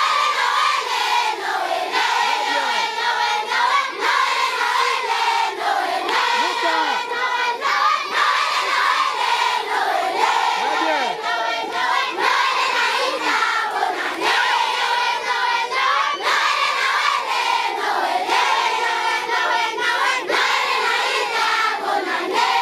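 A large crowd of schoolchildren singing and shouting together, loud and without a break.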